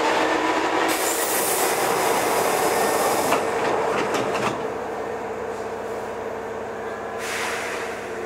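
Running sound of a Hankyu 7300 series electric train (set 7324F, a VVVF inverter test car) in a subway tunnel: wheels on rail with a steady motor tone. A bright rushing hiss comes in from about one to three seconds and again near the end, and the running eases a little about halfway.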